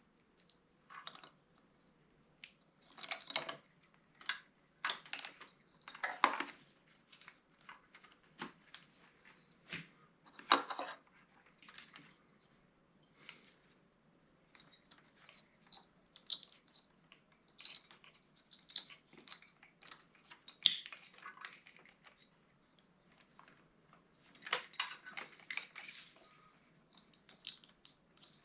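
Intermittent small clicks, rustles and short snips of hand work on motorcycle wiring, as the wires are routed and tied up with cable ties.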